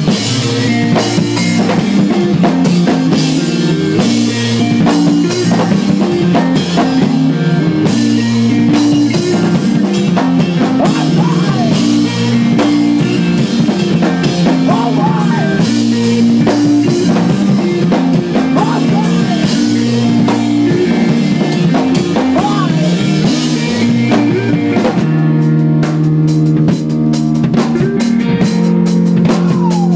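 A math rock band playing live, loud and continuous: drum kit and electric guitars over bass. Near the end the music shifts into a new section with sharp, evenly spaced drum hits over held chords.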